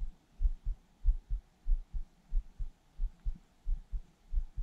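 A steady heartbeat-like lub-dub: low, muffled double thumps, about one and a half pairs a second, the first of each pair the stronger. The pattern fits the wearer's own heartbeat carried through a chest-mounted camera.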